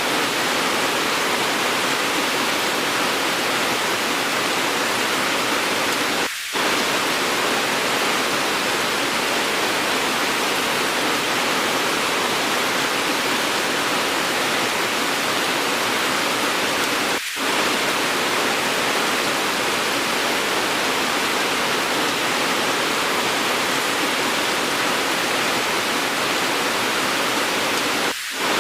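Edited recording of steady, heavy rain: a dense, even hiss. It dips briefly in level three times, roughly ten seconds apart.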